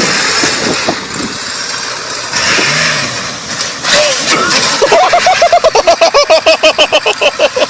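Vehicle engine running hard under loud noise. From about five seconds in it turns to a rapid, even pulsing of about seven beats a second, its pitch rising and falling.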